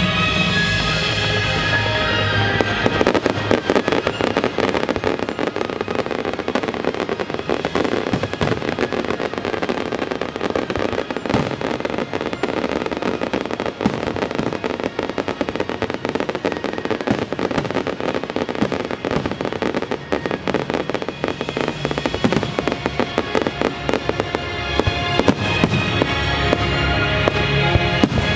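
A fireworks display firing rapidly: a dense run of sharp bangs and crackles over orchestral show music. The music is most prominent in the first couple of seconds and again near the end.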